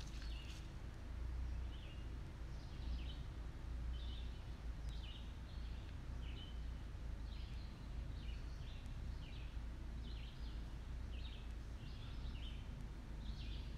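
Small birds chirping, short calls about one or two a second, over a steady low rumble.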